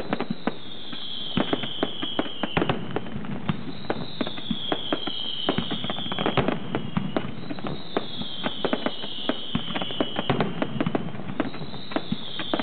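Pirotecnia Turís aerial fireworks display: many rapid, irregular bangs and crackles of shells bursting. A high tone sliding down in pitch recurs about every three to four seconds.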